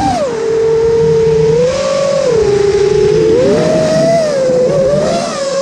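Brushless motors and propellers of a 5-inch FPV freestyle quadcopter whining, heard from the onboard camera. The pitch drops just after the start, climbs briefly near the two-second mark and rises again about three and a half seconds in as the throttle changes.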